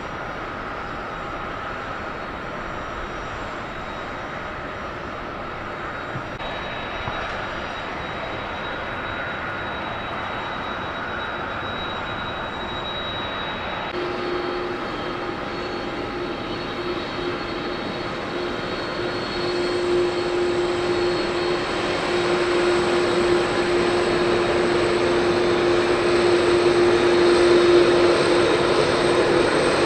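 Jet airliner engines running on the apron, a steady drone. From about halfway, a taxiing Boeing 767's turbofans approach, a steady low hum and whine growing louder toward the end.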